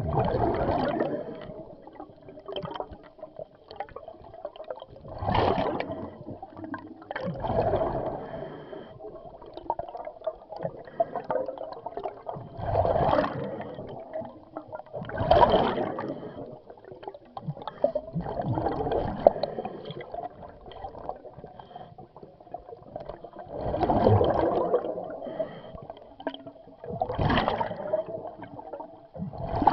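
Scuba diver breathing underwater through a regulator: exhaled bubbles gurgle in loud swells every few seconds, with quieter hissing between them.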